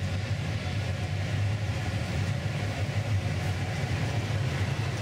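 Steady low roar of a glassblowing studio's gas-fired glory hole and furnace burners running.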